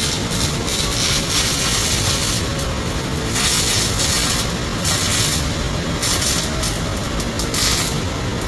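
MIG welding arc crackling and sizzling without a break, the hiss swelling and dropping every second or so.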